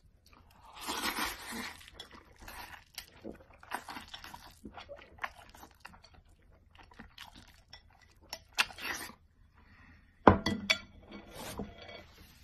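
Noodles being slurped and chewed in irregular bursts, with clinks of chopsticks against a bowl. There is a sharp knock about ten seconds in.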